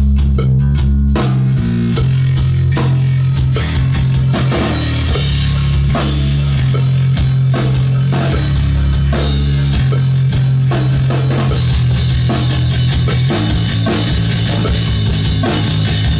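Rock music: a drum kit, guitar and bass guitar, with the bass holding long, loud low notes under steady drum hits.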